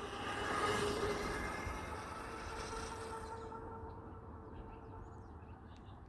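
A vehicle passing by: a rushing sound with a few steady tones in it, loudest about a second in and then slowly fading away.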